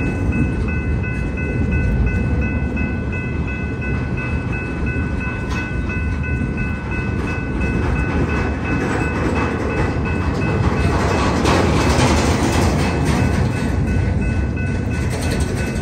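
Freight train of loaded flatcars rolling past over a grade crossing: a steady rumble and clatter of wheels on the rails, louder about eleven seconds in. A grade-crossing bell rings steadily over it.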